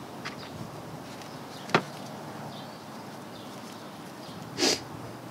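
Small drum-brake hardware, the shoe adjuster and its spring, being handled and unhooked by hand: one sharp click a little under two seconds in and a brief rattle near the end, over a faint steady background.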